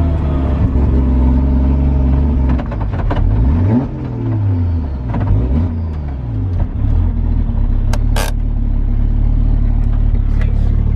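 Toyota 1JZ-GTE VVTi turbocharged inline-six engine in a Nissan Silvia S15 running steadily, revved up and back down twice about three to six seconds in, then settling back to a steady note; the owner says it is running rich. A sharp click about eight seconds in.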